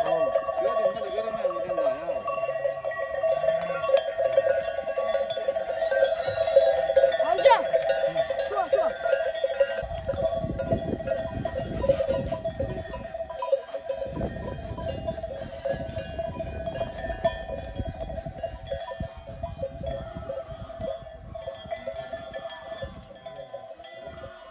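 Bells on a flock of sheep ringing steadily, with a few sheep bleating near the start. Stretches of low rumbling noise come in midway.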